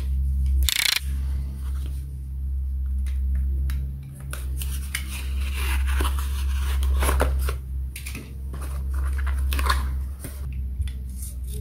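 Utility knife slitting a small cardboard box open, with sharp scraping cuts and the cardboard flaps rustling and clicking as they are pulled apart, over a steady low hum.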